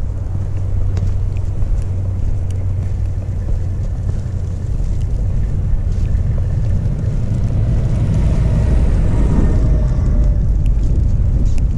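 Wind buffeting the microphone in a steady low rumble, with a van approaching on a snowy lane: its engine and tyres swell from about seven seconds in and pass close near the end.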